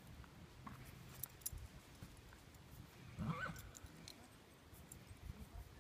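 A brief animal call about halfway through, rising in pitch, over faint scattered ticks.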